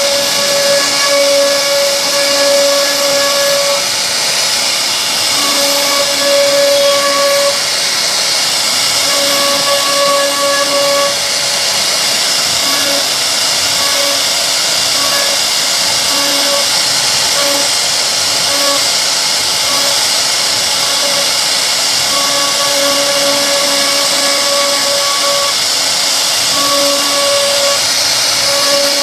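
CNC router spindle cutting solid wood, a loud steady high hiss with a pitched whine that comes and goes every few seconds as the bit works along the carving.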